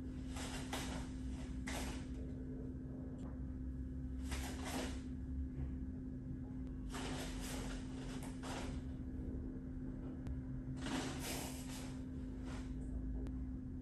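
Swishes and rustles of a taekwondo uniform and feet on foam floor mats as the moves of a form are performed, several short swishes spread through the stretch, over a steady low hum.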